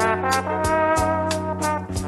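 Gafieira big-band music: a trombone-led brass section with trumpets over a steady bass and a percussion beat of about three strokes a second.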